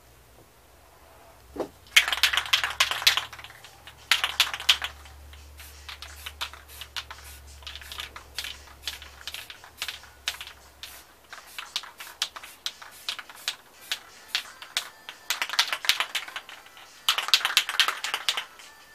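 Aerosol spray-paint can hissing in short spritzes and longer bursts, many quick spurts in the middle and longer blasts near the start and near the end.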